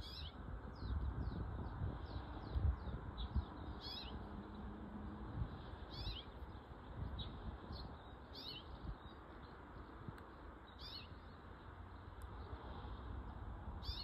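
Common rosefinch singing: a short whistled phrase of sweeping notes, repeated about every two to three seconds, with a run of quick thin notes in the first few seconds. A low rumble runs underneath.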